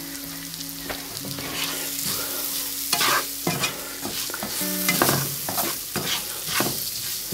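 Onions, curry leaves and ground spices sizzling in oil in a non-stick frying pan, stirred and scraped around with a slotted spatula in repeated strokes. The spices are frying off to release their aromas, with a little extra olive oil just added to stop them sticking.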